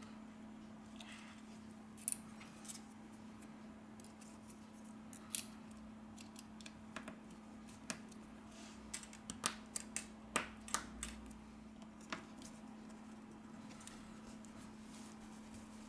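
Scattered light clicks and taps of small tools and smartphone parts being handled during reassembly, bunched together about two thirds of the way through, over a steady low hum.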